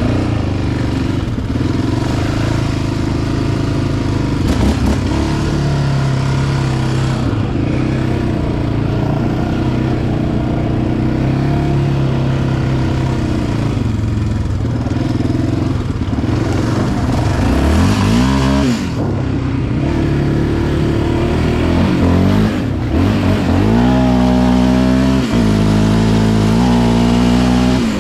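Yamaha Raptor 700R's single-cylinder four-stroke engine running under way on a trail, revving up sharply about two-thirds of the way through, then rising and falling with throttle and gear changes near the end.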